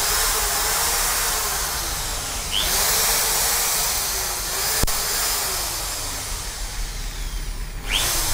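Huspanda HRD 1301 750 W corded electric drill running free with no bit in the chuck, its motor at full speed. It eases off and spins up again with a short rising whine about two and a half seconds in, slows over the next few seconds, then spins up once more near the end. A single sharp click comes about five seconds in.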